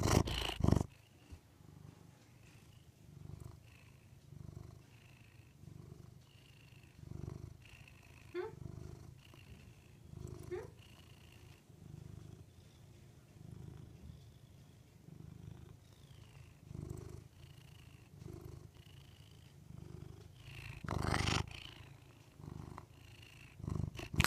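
Long-haired domestic cat purring close to the microphone, the purr swelling and fading with each breath about once a second. The cat's fur brushes loudly against the microphone at the start and again about three-quarters of the way through.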